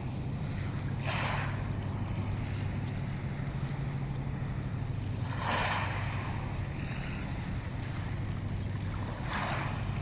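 Small waves washing onto a pebble beach, three gentle washes about four seconds apart, over a steady low hum.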